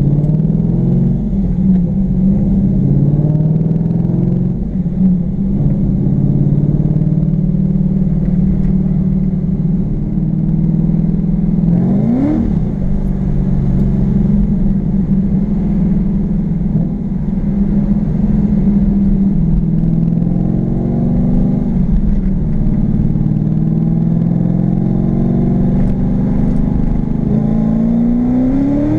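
LS1 V8 engine and exhaust of a third-generation Pontiac Firebird, heard from inside the cabin while driving. The revs climb and then drop sharply at a gear change twice, about twelve seconds in and near the end.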